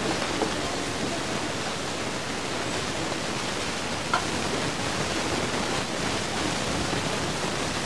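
Steady rushing hiss with faint voices in a crowded room under it, and one short click about four seconds in.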